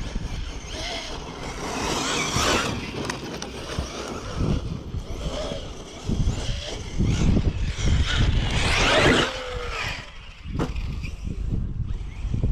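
Traxxas Sledge brushless electric RC monster truck on a 6S battery being driven in bursts, its motor whine rising and falling with the throttle. It is loudest about two seconds in and again from about six to nine seconds in.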